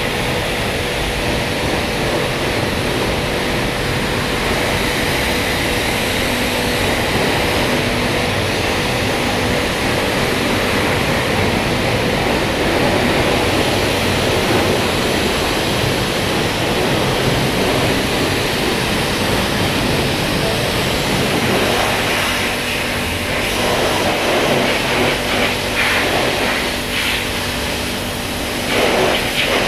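High-pressure washer lance spraying soapy water onto a motorcycle and the concrete floor: a steady hiss of spray over a faint hum, turning more uneven in the last several seconds as the jet is moved around the bike.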